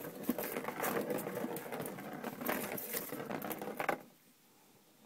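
A small ball rattling fast around the plastic track of a circular cat scratcher toy as a cat bats it, stopping about four seconds in.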